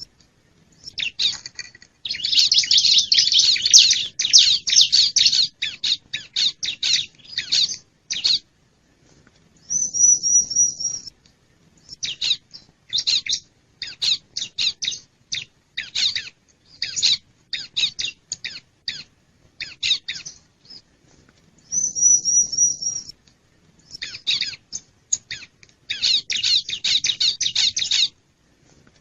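Bar-winged prinia (ciblek) calls played as a lure recording: long runs of rapid, chattering notes alternating with a short, high trill that returns every ten seconds or so.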